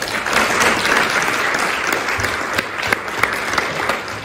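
Audience applauding, with many individual hand claps, starting just before and tapering off near the end.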